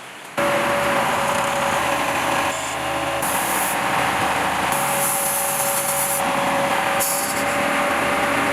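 Small air pump running with a steady motor hum over hiss; a higher hiss comes and goes every second or so.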